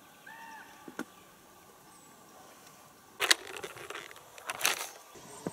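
Two brief rustling scrapes about three and four and a half seconds in, from a fabric rod case being handled. Before them, a single short arched call near the start.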